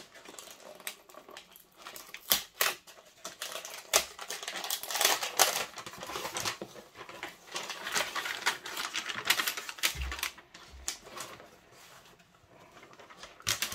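Paper packaging being ripped open and crumpled, a run of crackling tears and rustles. A couple of dull thumps come about ten seconds in.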